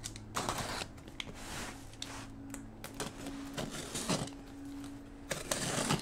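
A cardboard mailing box being opened by hand: rustling, scraping and tearing of the box and its tape in several separate bursts, over a faint steady hum.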